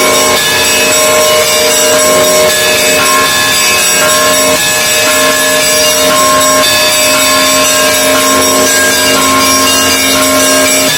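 Russian Orthodox monastery bells rung together in a loud, continuous peal: many overlapping bell tones, struck again and again, with no pause.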